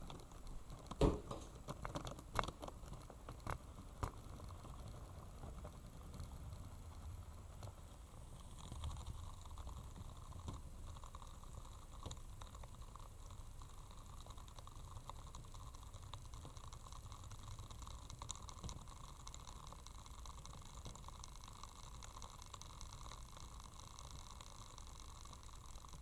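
Battery-powered 3D-printed model roller coaster train running along its plastic track, heard from on board: a few sharp clicks and knocks in the first four seconds, then a steady rolling rush with a faint tone in it.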